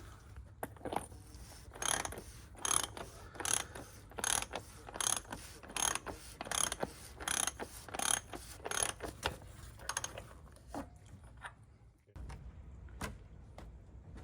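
A ratchet wrench worked in short repeated strokes, clicking about once every two-thirds of a second for some eight seconds before it stops.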